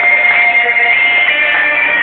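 Background music: an instrumental stretch of a song, with long held notes and no singing.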